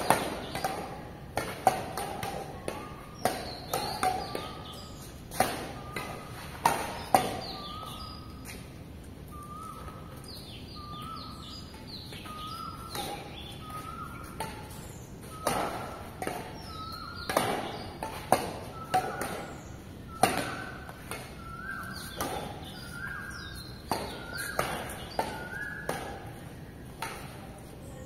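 Badminton rackets striking a shuttlecock in rallies: sharp hits every half second to a second, thinning out for a few seconds near the middle. Short high chirping squeaks sound between the hits.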